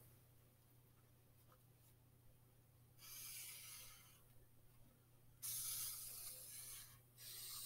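Marker pen drawn across paper, tracing the three sides of a triangle. There are three strokes of a second or so each: the first about three seconds in, the last running on at the end.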